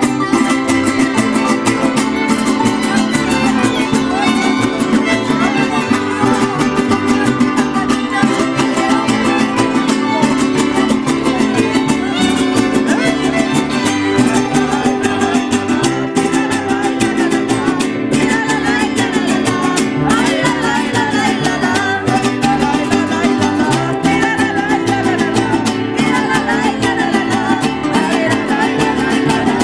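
Mariachi string ensemble playing a son live, guitars strummed in a steady driving rhythm with violins carrying the melody.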